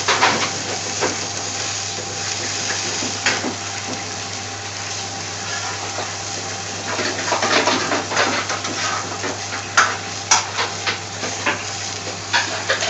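Pan of chopped onions, carrots and peppers in water boiling hard under a glass lid on high heat: a steady bubbling hiss with irregular sharp clicks and clinks, thickest in a cluster after the middle.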